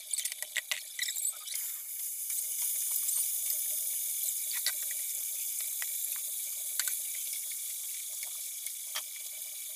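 Vegetable fry sizzling in hot oil in a pan: a steady high hiss with a few sharp pops and crackles, starting about a second and a half in after some clinking.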